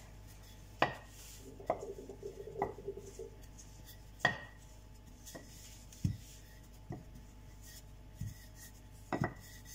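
Wooden rolling pin rolling out bread dough on a granite countertop, with scattered sharp knocks as the wooden pin is set down and bumps against the stone, about eight in all, the loudest near the middle.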